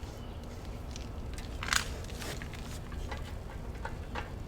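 Scattered light clicks and knocks from handling the foam cannon's plastic bottle while it is filled with soap, with one louder sharp clack a little before the middle, over a steady low rumble.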